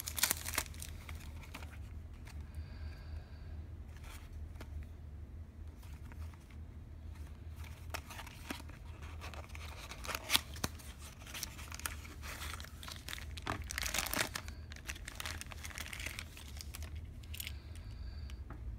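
Clear plastic film and a small cardboard toy box being handled and unwrapped: irregular crinkling and tearing of the cellophane, busiest around the middle and again a few seconds later, over a low steady hum.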